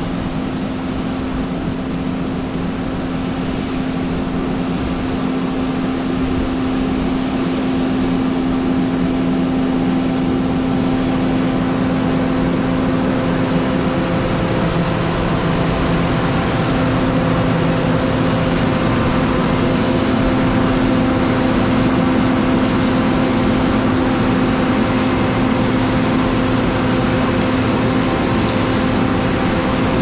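Steady machine hum with a few steady tones over a rough noisy base, growing slightly louder, with another low tone joining about halfway through.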